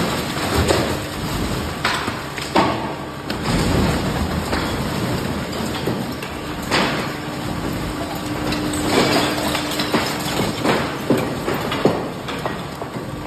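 A garbage truck's load of household trash sliding and falling into a concrete transfer-station pit: a continuous rattling, clattering spill broken by frequent knocks and thuds, including clinks of glass, over a faint low hum.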